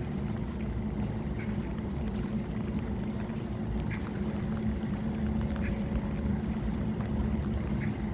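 Ventilation fan humming steadily under falling rain, with a light drip tick every second or so.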